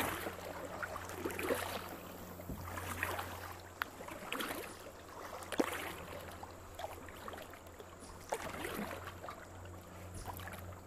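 Kayak paddle strokes splashing in creek water about every second and a half, with a couple of sharp knocks, over a steady low hum.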